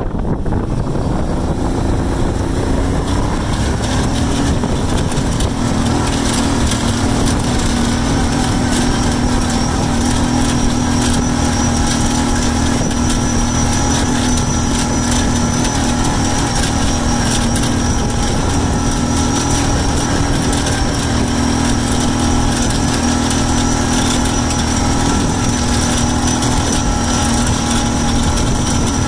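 Small vehicle engine running steadily while driving. Its tone rises over the first few seconds and then holds an even pitch.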